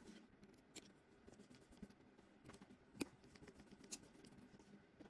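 Near silence with a few faint small clicks and scratches, the loudest about three seconds in: a precision screwdriver working the tiny earpiece screws out of an iPhone 12.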